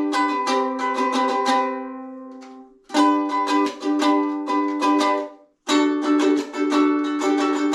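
Homemade redwood ukulele played in strummed chords. About two seconds in a chord is left to ring and fade out, then the strumming starts again, breaking off very briefly a little past the middle before carrying on.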